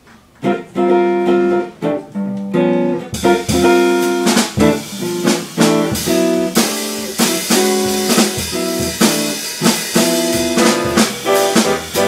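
Live bebop jazz quartet of electric guitar, piano, upright bass and drums. The first few notes are played without drums, and the full band with ride cymbal comes in about three seconds in.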